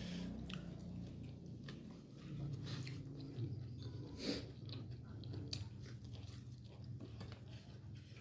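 Close-up chewing of raw kenikir (cosmos) greens: irregular crisp crunches and wet mouth clicks, over a low steady hum.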